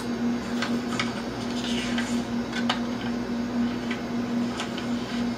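Room tone of a meeting room's sound system: a steady low electrical hum that wavers on and off, with scattered soft clicks and rustles.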